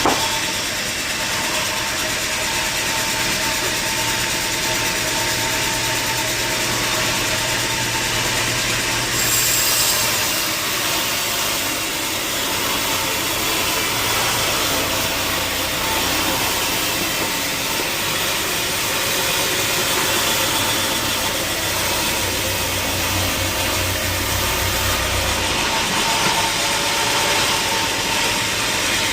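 Sawmill machinery running steadily: a continuous engine drone with saw noise, a brief louder hiss about nine seconds in.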